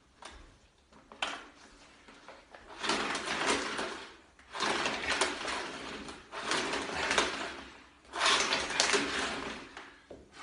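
Vacuum cleaner being handled and jiggled in three bursts of plastic clattering and rustling as someone tries to switch it on, with no motor starting.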